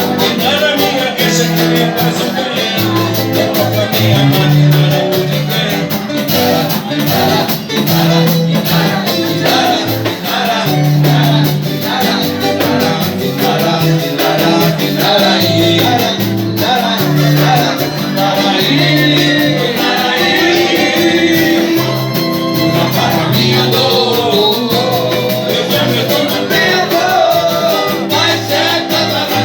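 Band playing Latin-style music with singing over a steady beat and a moving bass line.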